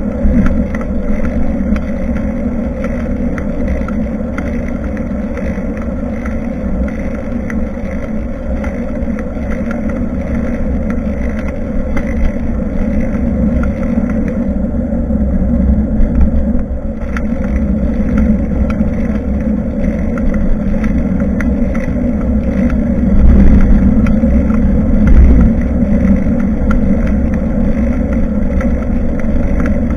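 Wind rushing and buffeting over a bicycle-mounted action camera's microphone during a ride, with a steady rumble underneath and stronger gusts a little after the middle.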